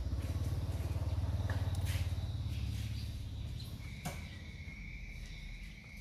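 A low, fast-pulsing engine rumble that swells over the first two seconds and fades away by about three seconds in; a steady high-pitched tone comes in about four seconds in.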